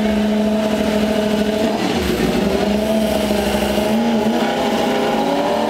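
Racing motorcycle engine running at steady high revs, its pitch wavering slightly, with a low rumble coming in about two seconds in and fading after about two seconds.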